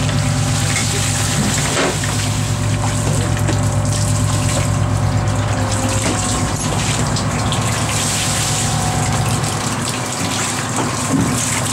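Boat machinery humming steadily, with water running and splashing on deck; the hum drops off about ten seconds in.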